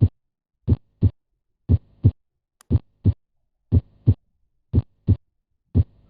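Normal heart sounds from an auscultation recording: a steady lub-dub, the first heart sound (S1) followed about a third of a second later by the second (S2), then a longer pause, about one cycle a second. Each sound is a single short thud, with no splitting.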